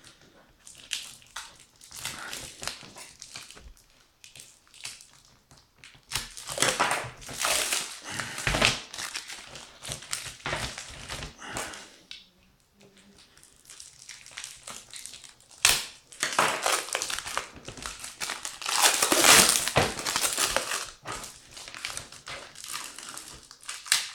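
Packaging being unwrapped by hand: paper and wrapping crinkling and crumpling in irregular bursts, with louder stretches of handling in between quieter pauses.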